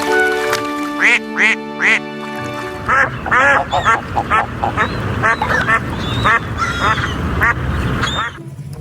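Duck quacking over light background music: a few quacks about a second in, then a quick run of quacks from about three seconds in that stops shortly before the end.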